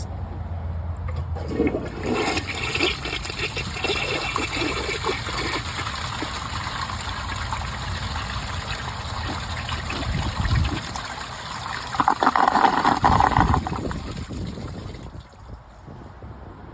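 1981 Briggs Abington toilet flushing. The water rushes steadily, swells into a loud gurgling gulp near the end, then dies away. The flush fails to clear a big wristband, which snags in the toilet's concealed siphon jet.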